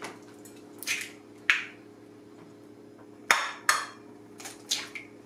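Eggs tapped on the rim of a bowl and their shells cracked open: a series of short, sharp taps and clicks, two about a second in, then a quicker run of several more in the second half.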